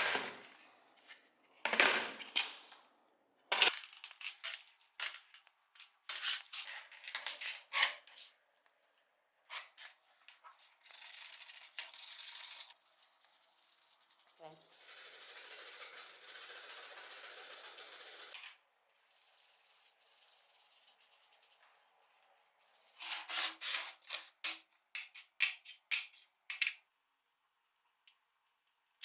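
Hand work on small model-car parts: a run of sharp clicks and scrapes, then a steady rubbing hiss for about ten seconds with one short break, then more clicks.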